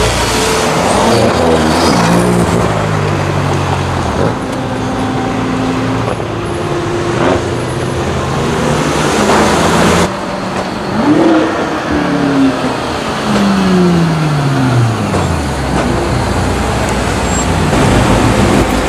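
BMW M performance car engines revving and accelerating, the pitch climbing and dropping through gear changes. There is an abrupt change to a different car about halfway through.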